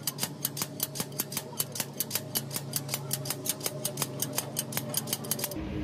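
Ratchet clicking rapidly and evenly, about seven clicks a second, as a homemade threaded tool is turned in the injector sleeve (bush) of an Isuzu 6HK1 diesel engine to draw the sleeve out.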